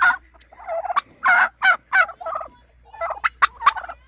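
A flock of domestic turkeys gobbling, one rapid burst of calls after another with short gaps between.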